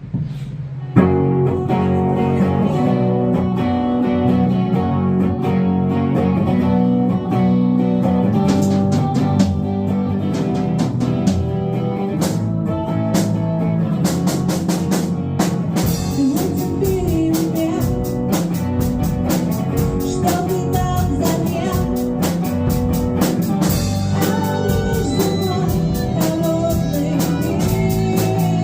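Instrumental intro of a song: guitar-led band music starting about a second in, with drum hits joining partway through and a steady drum-kit beat for the second half.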